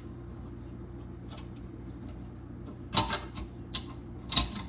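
Metal clicks and scrapes from handling the garbage disposal's mounting ring against the sink flange, a few sharp knocks in the last second and a half over a steady low hum.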